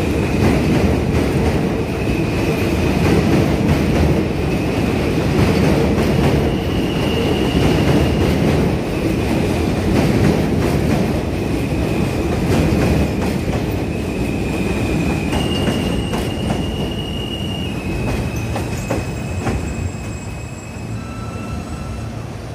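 New York City Subway train running along the elevated station platform, a steady rumble of wheels on rail. Over it runs a high-pitched wheel squeal that jumps in pitch several times. The sound fades somewhat near the end.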